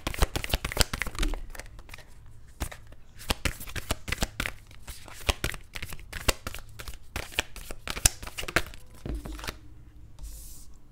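A deck of oracle cards being shuffled by hand close to the microphone: a quick, dense run of card snaps and papery rustling that thins out near the end.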